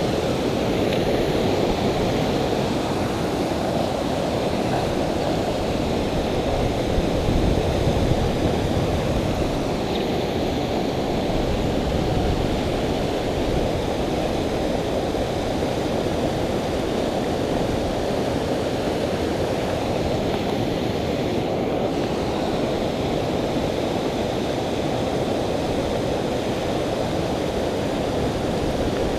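Steady rushing of a flowing creek, with wind buffeting the microphone.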